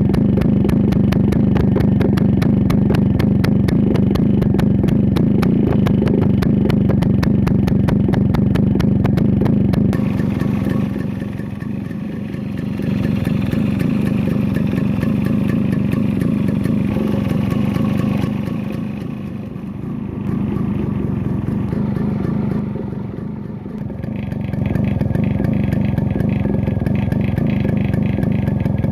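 Yamaha RX135's two-stroke single-cylinder engine running on its stock exhaust, with a fast, even firing beat; its loudness eases and picks up again a few times.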